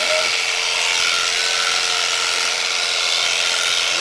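Electric sheep shears buzzing steadily as they cut through a sheep's fleece, a constant motor hum under the hiss of the clipping.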